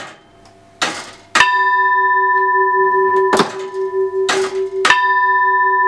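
Domed French railway platform bell struck twice, about a second and a half in and again near the end, each strike leaving a long, resonant ring: a low hum that pulses several times a second under two higher steady tones. Brief rasping noises come between the strikes.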